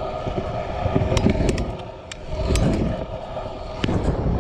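Kick scooter's wheels rolling on skatepark concrete, a rumble that swells and fades as it carves, with sharp clicks and knocks from the wheels and deck.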